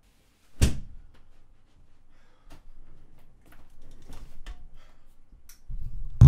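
A door slammed shut with one loud bang, followed by footsteps and small clicks and rustles across the room. Near the end there is a low rumble and a sharp knock as a boom-arm microphone is handled and pulled into place.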